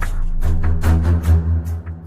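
Music: a deep, steady bass under quick, repeated percussive hits.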